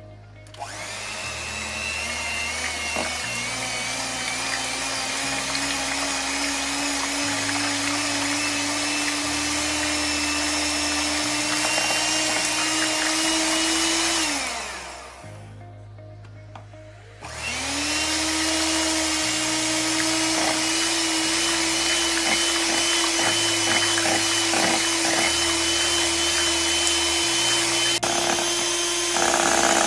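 Electric hand mixer whipping cream and soft cheese in a glass bowl. Its motor whine rises as it comes up to speed, runs steadily for about 14 seconds, winds down and stops, then starts again a few seconds later.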